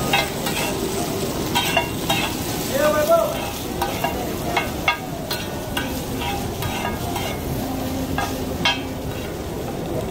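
Potato patties sizzling in oil on a large flat griddle while two steel spatulas chop and scrape through them, with frequent irregular metal clinks and scrapes.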